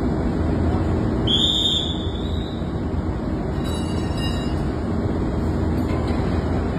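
Steady, loud drone of ship engine-room machinery. A brief high-pitched squeal comes about a second in, and a few light metallic clinks around four seconds in.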